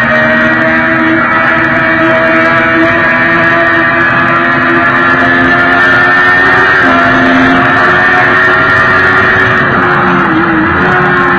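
Sport motorcycle engine at high revs, holding a steady drone while cruising at highway speed, with wind rushing over the fairing. The engine note dips briefly near the end as the throttle eases off and back on.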